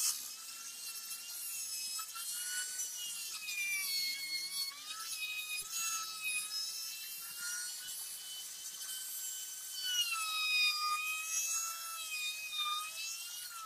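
Handheld electric trim router running at high speed as it cuts into hardwood, its whine wavering and dipping as the bit takes load. It switches off near the end and the pitch falls away.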